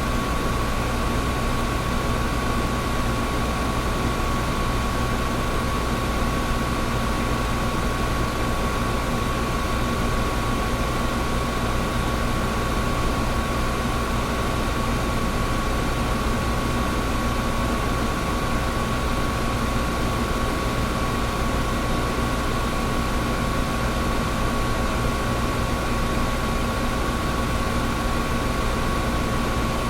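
Air conditioner running steadily: an even rushing of air over a low rumble, with a constant hum tone that does not change.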